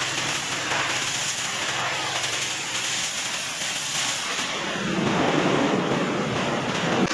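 Pressure washer spraying, a steady hissing rush of water that gets louder and fuller about five seconds in.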